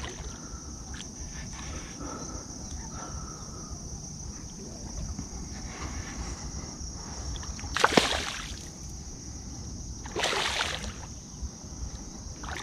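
Water splashing twice, about two seconds apart, as a hooked traíra thrashes at the surface, over a steady high-pitched insect buzz.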